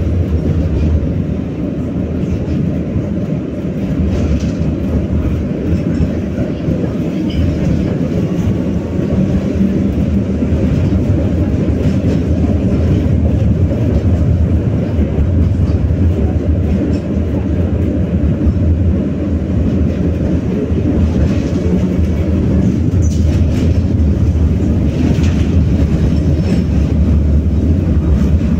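BKM-60102 tram running along the track: a steady low rumble of steel wheels on the rails, with a few light clicks and rattles in the last several seconds.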